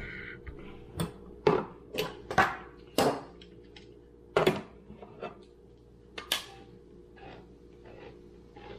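A tin of cream of chicken soup being opened: a series of sharp metallic clicks and knocks, about seven of them, irregularly spaced and thinning out after the first few seconds.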